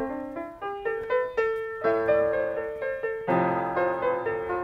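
Keyboard music: a melody of separate piano-like notes, joined about three seconds in by fuller chords and a bass line.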